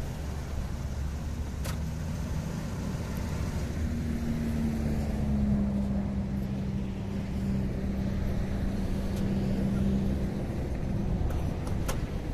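Toyota Dolphin motorhome's engine running at idle with a steady low hum; a higher steady whine joins it for several seconds in the middle.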